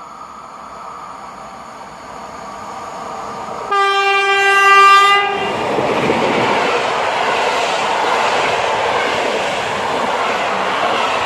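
PKP Intercity electric locomotive approaching, sounding one horn blast of about a second and a half, then the passenger train passing close by with a steady rushing noise of wheels on rails.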